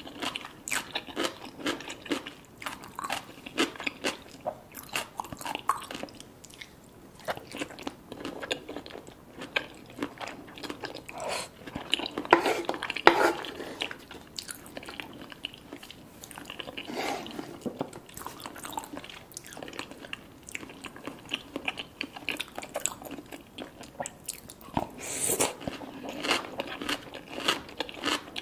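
Close-miked crunchy biting and chewing of food, dense runs of sharp crunches throughout.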